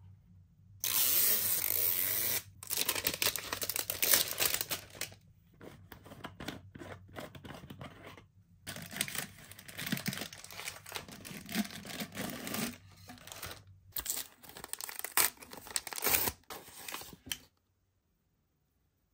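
Toy packaging being torn open by hand: one long tearing rip about a second in, then bursts of crinkling and rustling as the wrapping is pulled apart, stopping abruptly near the end.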